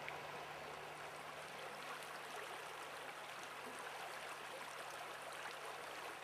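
Steady rush of flowing river water, even and unbroken, with a faint steady low hum beneath it.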